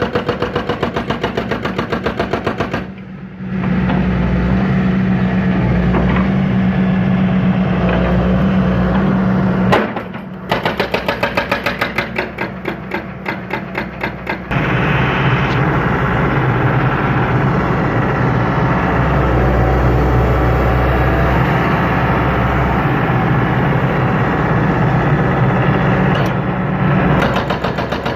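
John Deere 160C excavator's diesel engine, pulsing at a lower setting, then coming up under load about three seconds in and holding a steady drone. It drops back to a pulsing beat for a few seconds around the middle, then works under load again until near the end.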